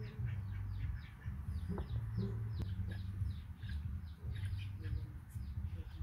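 Small birds chirping in a rapid run of short, falling chirps, several a second, over a steady low rumble.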